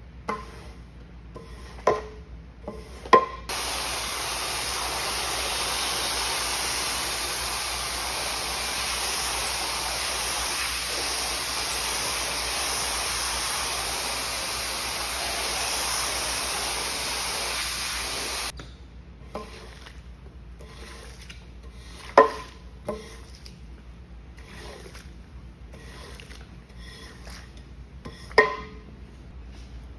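Water spray from a rinse wand hissing steadily onto a wet rug for about fifteen seconds, starting a few seconds in. Before and after the spray, squeegee strokes across the wet rug with a few sharp knocks.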